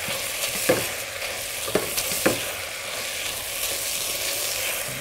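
Chopped red peppers and vegetables sizzling in an enamel stockpot as a silicone spatula stirs and scrapes them, with a few sharp knocks of the spatula against the pot in the first half.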